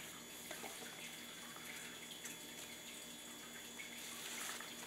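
Faint handling of soaked corrugated cardboard being peeled apart: soft wet rustles and a few light clicks over a low steady hum.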